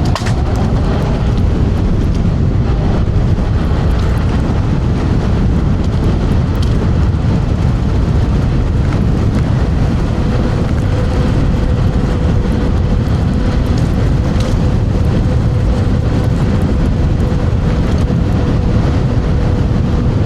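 Heavy wind rushing and buffeting over a clip-on microphone during a fast ride on a TRBK M2 electric scooter in strong wind. A faint steady tone comes in about halfway through.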